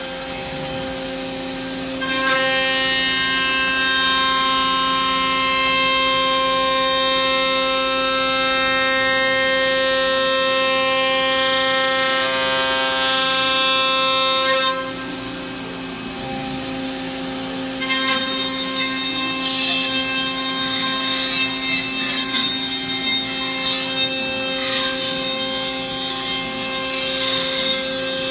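CNC router spindle running with a steady high whine while milling aluminium. The cutting sound swells about two seconds in, drops back for a few seconds just past the middle, then returns with a rougher, chattering edge.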